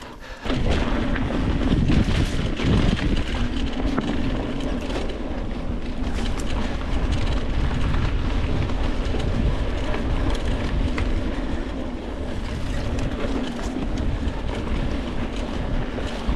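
Mountain bike rolling down a dirt singletrack: steady tyre noise on loose dirt with low rumble and scattered rattles and clicks from the bike, starting about half a second in.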